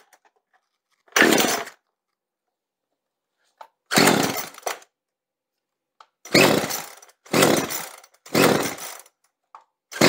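Recoil starter of a Poulan two-stroke chainsaw pulled five times with the choke on, each pull a short whirr of the engine cranking over, with pauses between. The engine catches and runs at the very end.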